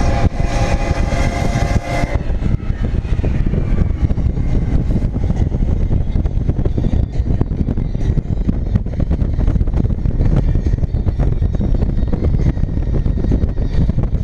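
Train horn sounding a steady chord that cuts off about two seconds in, over the loud, continuous rumble of a passing train.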